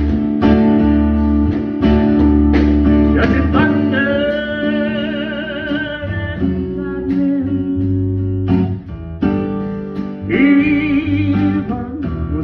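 Live country band playing: strummed acoustic guitar, electric bass and drums, with a man singing two long held notes that waver with vibrato.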